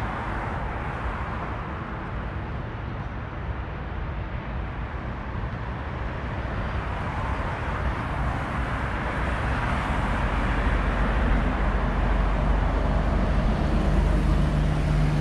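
City street traffic: a steady rush of passing cars that grows louder over the second half as a vehicle draws near, with a low engine hum building near the end.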